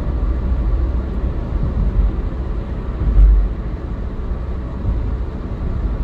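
Steady low road rumble of a car cruising on an expressway, heard inside the cabin, with one brief louder low thump about three seconds in.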